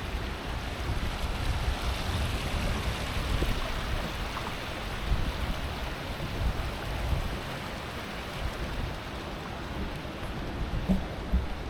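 Wind buffeting the microphone with a gusty low rumble over a steady hiss of rain, with a couple of brief knocks near the end.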